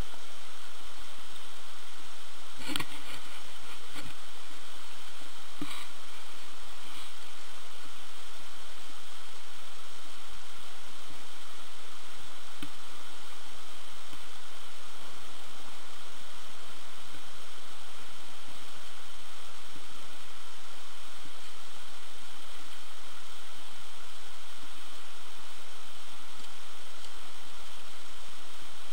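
Steady hiss of skis sliding over packed snow, heard from a skier's camera, with two short clacks about three and six seconds in.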